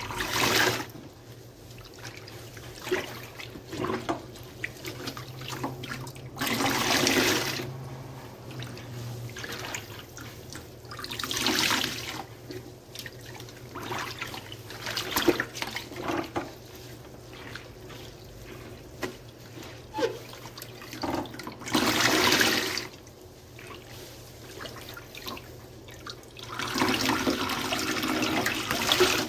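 Soapy sponges being squeezed by hand: wet squelching and small crackles of suds, with four longer gushes of soapy water running out.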